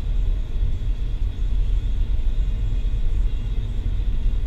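Road noise heard from inside a moving car's cabin: a steady low rumble of tyres and engine while driving at a constant speed.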